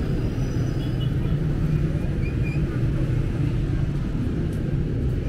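Steady low rumble of city street traffic, with motorcycles and cars passing on the road.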